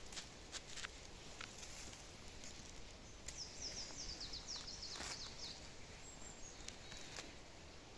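A small songbird sings a quick run of short, high notes that slide downward, a few seconds in, over faint forest ambience. Scattered light clicks and rustles come from hands and a knife working in the grass as a mushroom is cut.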